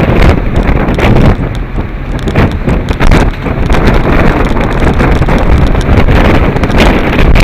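Gale-force wind blowing across the microphone, loud and gusting, with uneven surges throughout.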